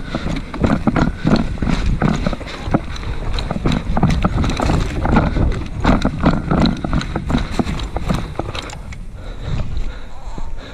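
Rapid footsteps of a person running, thinning out and easing off about nine seconds in.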